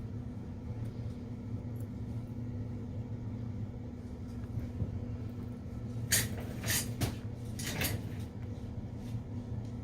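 Steady low electrical hum, with four short scraping rustles about six to eight seconds in from small parts and tools being handled on the work surface.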